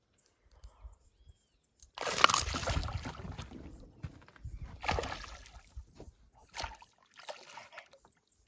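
Water splashing and sloshing beside a small boat in several loud bursts, starting about two seconds in, with smaller splashes after.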